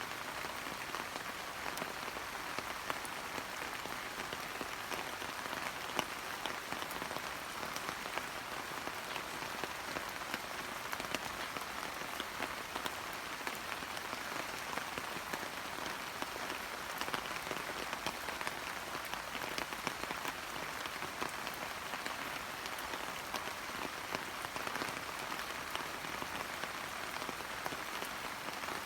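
Steady rain falling on hydrangea leaves: a constant hiss with many small drop taps scattered through it.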